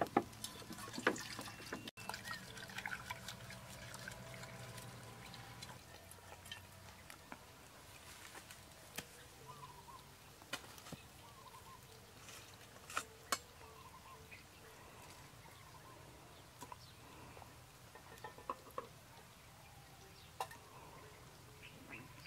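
Scattered sharp clicks and knocks from hands handling cooking utensils, pots and a knife, with a knife striking a wooden chopping board near the end, over a faint outdoor background.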